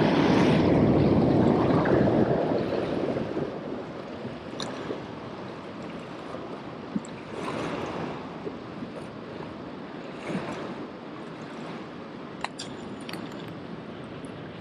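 Small waves washing and splashing against the rocks of a jetty, loudest in the first couple of seconds and then settling to a steady wash, with a few faint sharp clicks.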